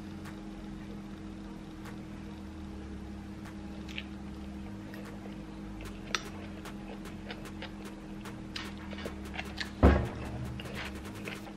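Eating at a table: scattered small clicks of a metal fork against a dish and chewing sounds over a steady low hum, with one louder thump about ten seconds in.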